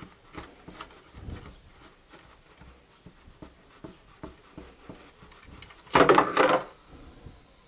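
Automatic transmission drain plug being unscrewed by hand, with faint scraping and clicking of the threads. About six seconds in, the plug drops into the drain basin with a short loud clatter and splash as the hot transmission fluid starts to pour out.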